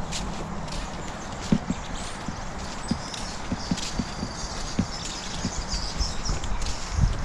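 Footsteps on wet estuary sand: soft, irregular steps about every half second to a second, over a steady background hiss.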